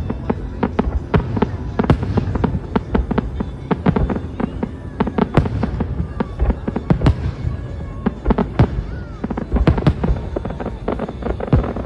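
Aerial fireworks display: a rapid, unbroken barrage of sharp bangs and crackling shell bursts, with a brief whistle about nine seconds in.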